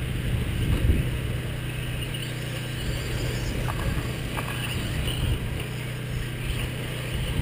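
Radio-controlled off-road cars running laps on a dirt track, heard as a steady mechanical hum with a fainter higher whine over it.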